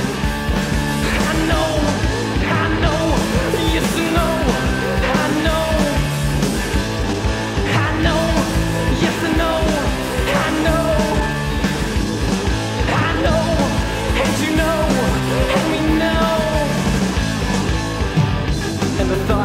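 Rock band (guitar, bass and drums) playing an instrumental passage of a song from a 1989 cassette demo. A pitched line bends up and down about every second or so over a steady beat.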